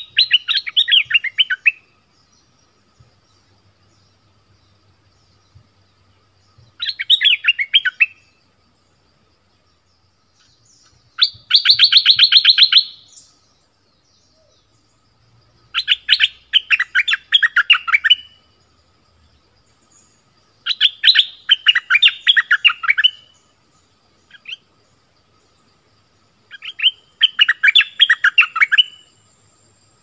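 A caged decoy bulbul (merbah lekir, Thai นกดอกแตง) singing in six short phrases of rapid notes, each about two seconds long and four to six seconds apart.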